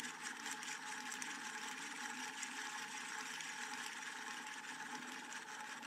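Faint steady hum of a small machine running, with a thin, steady whine over it.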